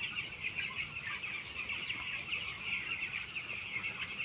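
A flock of 13-day-old poultry chicks peeping continuously, many high chirps overlapping into a steady chorus.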